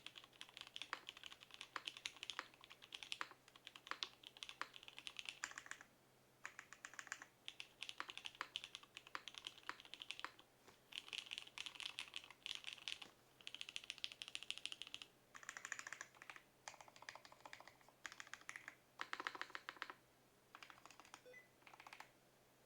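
Typing on a Zerosixty 60% custom mechanical keyboard with an acrylic gasket-mount case, half plate and Jwick Black linear switches. Rapid keystrokes come in bursts of a few seconds, with short pauses between.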